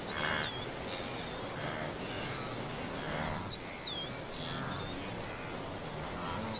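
A wildebeest herd calling with short, repeated grunts, over a bird's swooping whistle that comes back about every three seconds.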